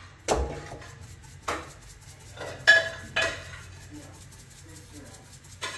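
Metal pans and dishes being handled on a kitchen counter: about five sharp clinks and knocks, each with a brief ring, the loudest about halfway through.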